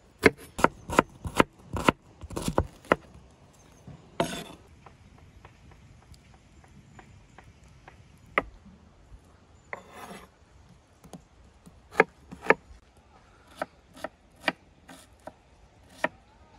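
Large kitchen knife chopping peeled onions on a wooden cutting board: a quick run of sharp knocks in the first three seconds, then scattered single knocks after a pause. There are two brief scraping sounds, one about four seconds in and one about ten seconds in.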